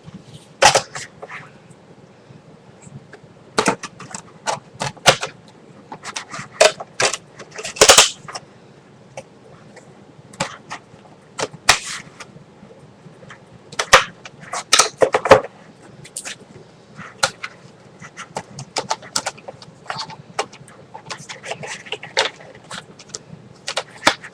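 Plastic Blu-ray case being handled: discs snapped off their centre hubs and the case's trays and cover clicking and knocking, a run of sharp irregular clicks and snaps, the loudest about 1, 8 and 15 seconds in.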